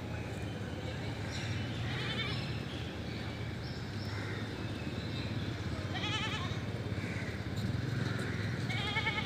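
An animal bleating three times, each a short quavering call, the calls a few seconds apart and the last near the end, over a steady low hum.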